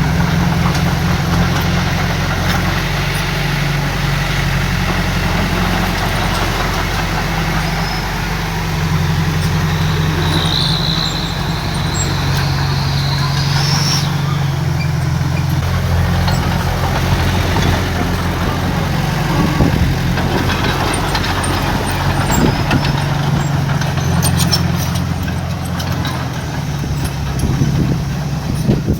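Heavy diesel engine of earthmoving equipment running, its pitch shifting as the load changes. About ten seconds in a high squeal rises for a few seconds, and a few sharp clanks come near the end.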